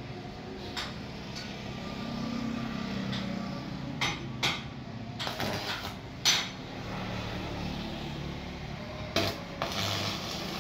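Arc welding on a heavy tractor part: stretches of crackling from the welding arc, broken by several sharp metallic clinks and taps.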